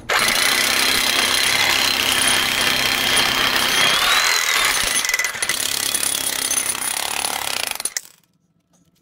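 Electric breaker (jackhammer) with a chisel point hammering continuously into a concrete floor, breaking out a square that has been saw-cut into segments; the hammering stops abruptly about eight seconds in.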